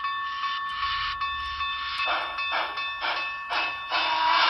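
Sound system of a Broadway Limited HO-scale C&O #614 steam locomotive model playing steam-engine running sounds through its small speaker as it moves: a steady high tone under chuffs about two a second, turning into a louder hiss near the end.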